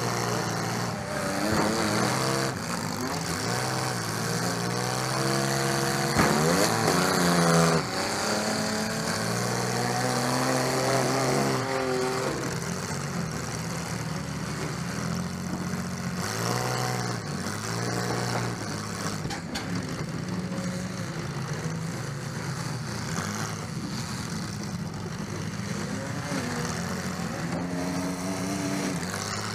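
Demolition-derby Chevrolet Lumina's engine heard from inside the gutted cabin, revving up and falling back again and again as the car manoeuvres. A sharp bang about six seconds in, the loudest moment.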